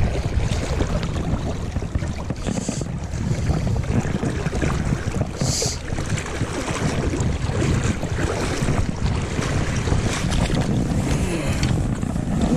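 Wind buffeting an unshielded camera microphone over rushing shallow river water, with two brief hisses about two and a half and five and a half seconds in.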